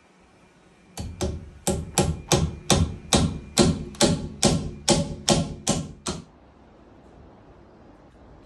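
Hand hammer striking at the top of a standing-log wall, about fifteen quick, evenly paced blows that start about a second in and stop a little after six seconds.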